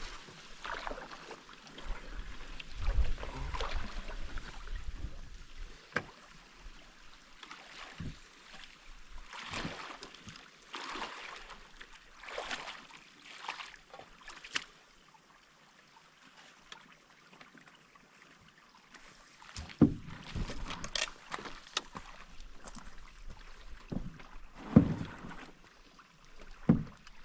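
Canoe paddle strokes swishing and splashing through the water at an uneven pace, with a few sharp knocks near the end.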